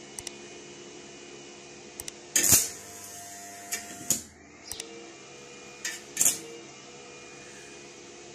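Welding rod tapping and scraping against a rusty square steel tube, giving a few sharp clicks and short scraping bursts, the loudest about two and a half seconds in. A steady hum runs underneath.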